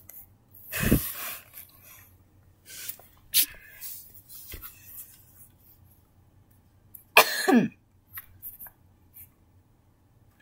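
A person coughing twice, once about a second in and again near seven seconds, each cough a short noisy burst with a falling vocal pitch. Small clicks and rustles between them, as a hand handles the plush toy against the tablet.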